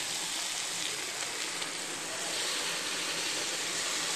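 Onions, tomatoes and spices frying in oil in a pan, a steady sizzling hiss, as ground mint and coriander paste is added to the masala.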